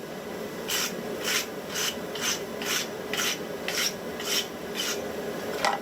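Steel wire brush scrubbing scale off a hot Damascus billet, in short scratchy strokes at about two a second, cleaning the steel before flux goes on.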